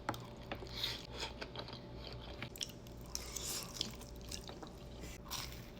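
Chewing a mouthful of vodka pasta and crispy fried chicken cutlet, with irregular small clicks of the food in the mouth.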